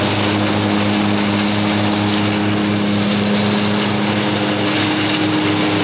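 Riding lawn mower running steadily while mowing, its engine holding an even pitch with a regular throb.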